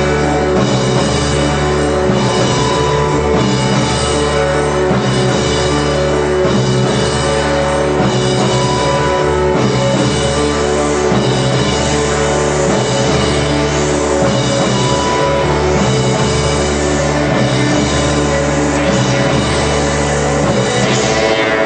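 Art-rock band playing live: drum kit and guitars over a strong, steady bass, dense and continuous.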